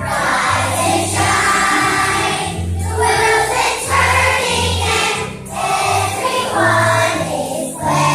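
A group of voices singing together over instrumental backing music with a steady bass line.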